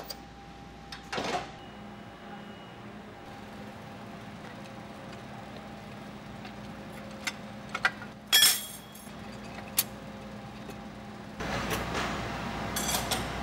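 Transmission assembly-line factory floor: a steady machine hum with scattered sharp metal clicks and clanks. The loudest clank comes a little past the middle, and there is a louder stretch of noise with metal clinks near the end.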